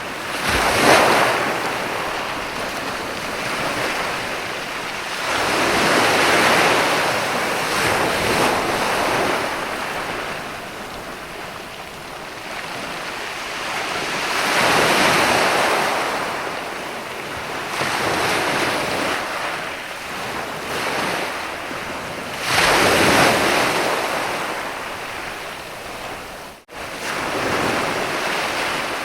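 Sea waves breaking and washing up a sandy beach, the surf swelling and ebbing every few seconds, with a steady hiss between the swells. The sound cuts out for an instant near the end.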